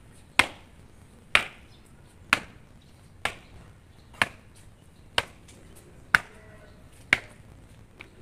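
Hard-soled shoes striking pavement in a slow, even ceremonial march, one sharp step about every second.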